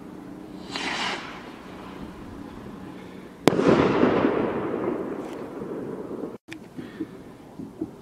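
A firework rocket goes up with a short hissing whoosh. About two and a half seconds later it bursts with one sharp bang, which echoes and dies away over a couple of seconds. The sound then cuts off suddenly.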